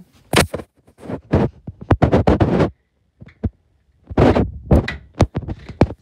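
Handling noise: a rapid run of knocks, thumps and rubbing, in two busy stretches with a short lull about three seconds in.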